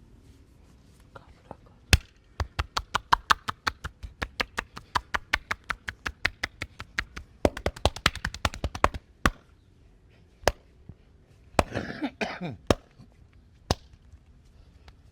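Rapid rhythmic tapping strokes of a hand massage: sharp slaps about five a second, quickening for a moment past the middle, then a few single slaps about a second apart.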